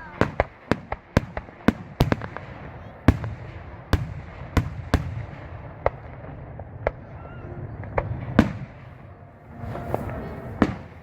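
Fireworks going off: a quick string of sharp bangs in the first two seconds, then scattered single bangs every second or so, over a steady low rumble.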